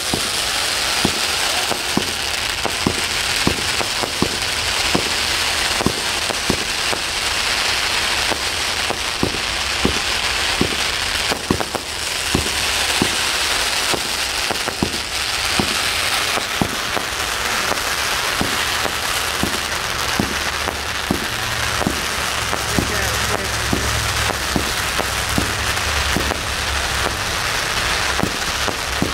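200-gram consumer fireworks going off in steady succession: sharp shots about one to two a second over continuous crackling.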